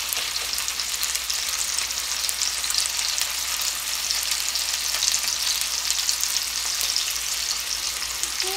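Boneless chicken breasts frying in olive oil in a skillet: a steady, crackling sizzle.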